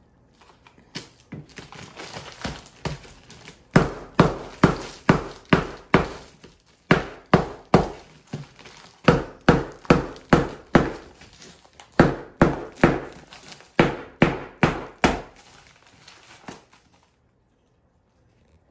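A paper-wrapped Moroccan sugar loaf being knocked hard with the handle end of a large kitchen knife, cracking it into pieces. The sharp blows come fast, two to three a second, with a couple of short pauses, and stop near the end.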